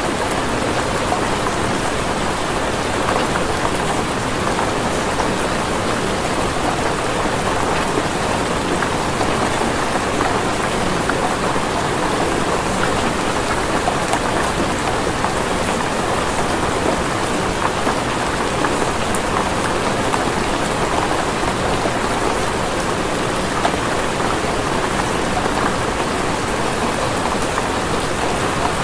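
Steady rain falling and pattering on a surface, an even dense hiss at a constant level.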